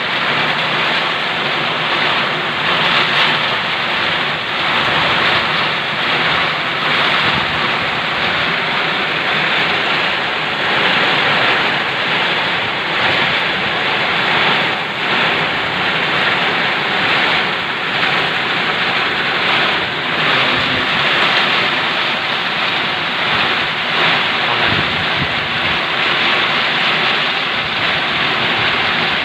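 Heavy rain pouring in a windstorm, a steady loud rush with gusts, the wind buffeting the microphone.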